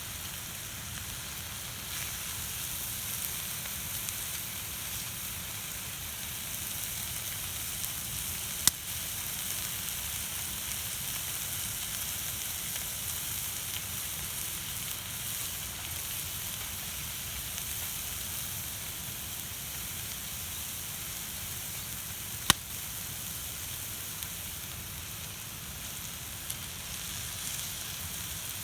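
Food sizzling steadily on a hot steel griddle pan over a wood fire, with two sharp pops, one about nine seconds in and one about twenty-two seconds in.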